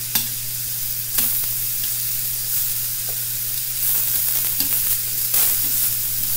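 Zucchini slices and shrimp sizzling steadily in hot oil in two skillets, with a few sharp clicks of metal tongs against the pan as the slices are lifted out.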